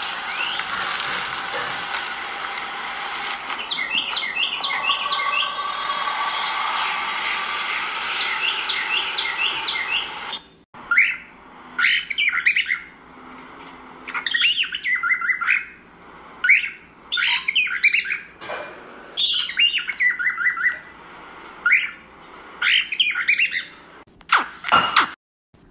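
A loud steady hissing noise with a few quick chirps in it, cutting off abruptly about ten seconds in; then pet parrots, a cockatiel and a budgerigar, calling in short bursts of rapid chirps and squawks, roughly one burst every second or two.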